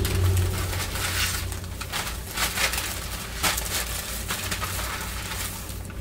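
Shopping bag rustling and crinkling in irregular bursts as someone rummages through it, over a steady low hum.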